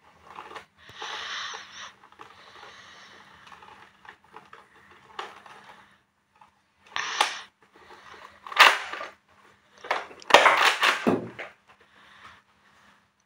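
Nerf Accu-Rival Forerunner pump-action blaster being handled: rounds pushed into its internal magazine and the pump worked, giving rattles and sharp plastic clacks. The loudest clacks come in the second half, a single one and then a longer double stroke.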